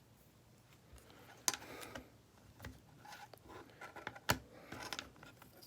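Small clicks, faint scraping and rustling from working a disassembled smartphone's internal parts with tweezers. Two sharper clicks stand out, about a second and a half in and again past four seconds.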